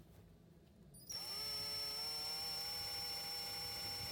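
Electric drill with a magnetic screwdriver bit starting up about a second in and running at a steady speed, driving a screw. Its whine rises briefly in pitch as it spins up, then holds steady.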